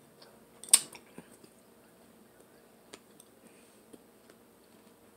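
Close-miked eating sounds: one sharp crunching bite about three-quarters of a second in, then a few faint chewing clicks.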